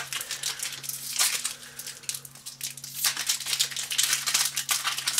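Trading cards handled by hand: a quick, irregular run of papery rustles, flicks and crinkles as cards are shuffled through and laid down.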